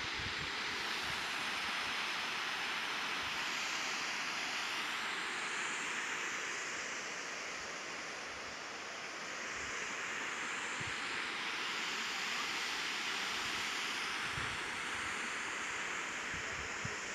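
Waterfall: a steady rush of water falling, with a slight dip in level about halfway through.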